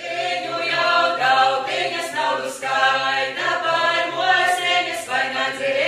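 A choir of voices singing in held, slowly changing notes over a steady low drone.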